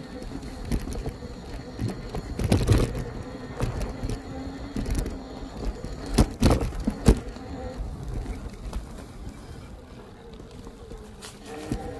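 Electric bike motor whining while riding off-road, fading out about halfway and coming back near the end. Several sharp knocks stand out, the loudest a few seconds in and about halfway.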